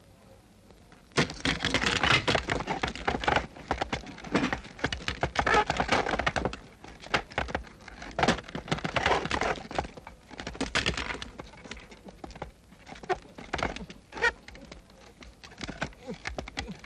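A sudden crash about a second in, then a long, dense clatter of knocks and rattles, like a mechanism breaking apart and scattering small metal parts. It thins out into scattered clicks.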